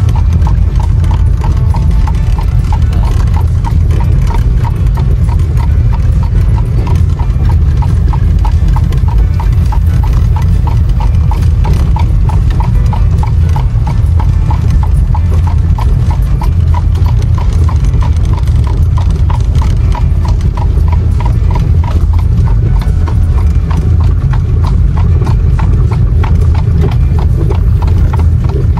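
A horse's shod hooves clip-clopping in a quick, even trot on asphalt, heard from inside the horse-drawn buggy, over a loud steady low rumble.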